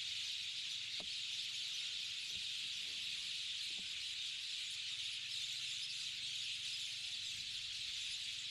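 A steady, dense, high-pitched chorus of wildlife calls: wetland ambience that holds an even level without a break.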